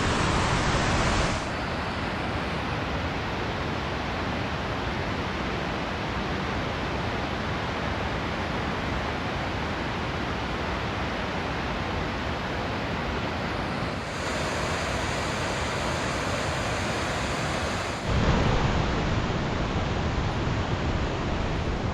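Steady rushing of a big waterfall heard from a viewpoint, a constant dense noise without pauses. Its tone and level shift abruptly three times, a little after the start, around two-thirds through and near the end.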